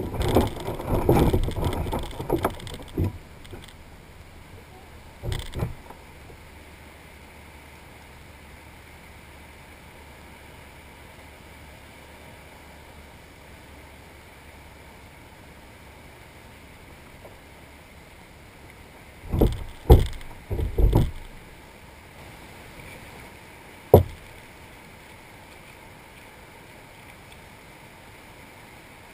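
Knocks and rattles from gear being handled on a plastic fishing kayak, heard through a camera mounted on its hull: a busy cluster near the start, a few more knocks about two-thirds of the way through and one sharp knock soon after, between long stretches of steady faint hiss.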